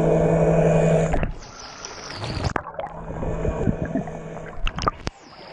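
Sea-Doo underwater scooter's electric motor and propeller whining steadily through the water, cutting out about a second in. After that comes bubbling, sloshing water with scattered clicks, and the motor tone returns more faintly for a moment in the middle.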